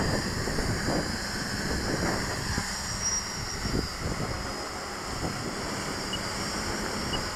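Wind buffeting the microphone in a rumbling haze, over the steady hum of a quadcopter's brushless motors and 8-inch two-blade propellers as it hovers some way off.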